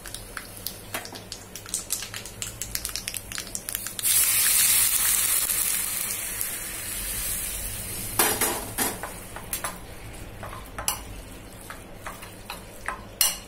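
Scattered clicks and crackles. Then, about four seconds in, a sudden loud sizzle as hot tempering oil with mustard seeds, cumin and asafoetida is poured over grated raw mango, fading away over about four seconds. After that a steel spoon stirs and clinks in a steel bowl.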